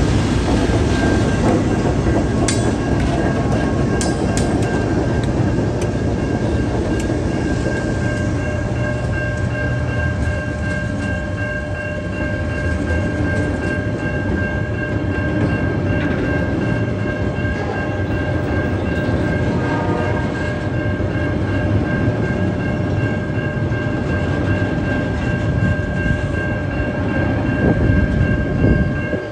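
A freight train's empty log wagons rolling past close by: a steady heavy rumble of wheels on rail with clatter and occasional sharp clicks. A steady high-pitched tone runs through it.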